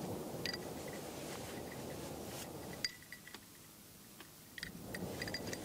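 Faint room ambience with a few small, sharp clicks. The background dips for about two seconds in the middle and then returns.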